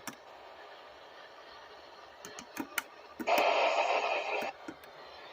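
Weather radio receiver: low hiss, then a few sharp clicks, then a burst of radio static lasting just over a second, followed by one more click.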